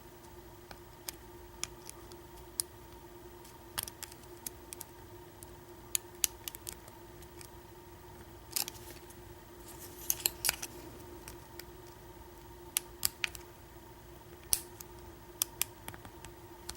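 Irregular small metallic clicks and ticks of a lock pick and tension wrench working the pin stack inside an American 1100 padlock during single-pin picking, with a small cluster of clicks about ten seconds in.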